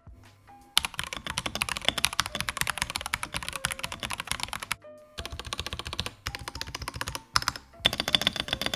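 Royal Kludge RK96 mechanical keyboard being typed on in its stock, unmodified state: rapid, dense keystroke clicks starting about a second in, with two short pauses.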